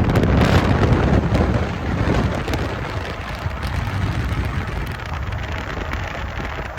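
Steady rumble and rushing noise of a moving vehicle, louder over the first two seconds and then settling, with wind buffeting the microphone.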